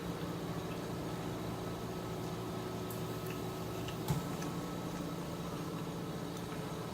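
Steady background hum under close-miked eating of a sticky chicken wing: a few faint wet clicks of chewing and lip smacking, and a soft knock about four seconds in.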